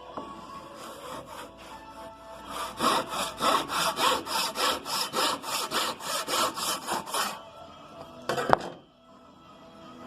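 Hand saw cutting through wood in quick, even back-and-forth strokes for about five seconds, then a single sharp knock.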